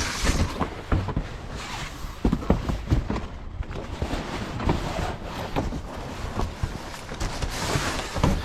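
Irregular knocks, clatter and rustling of someone moving about and handling junk inside a dumpster.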